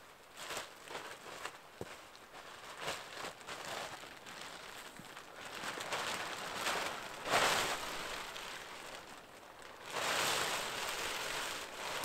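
Plastic tarp rustling as it is unfolded and thrown over a wooden ridge pole, with footsteps on the forest floor. The loudest rustles come about seven seconds in and again around ten seconds in.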